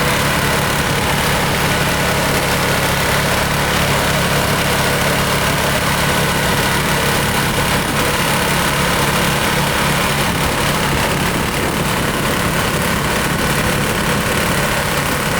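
Engine of a Wood-Mizer LT40 portable band sawmill running steadily at idle.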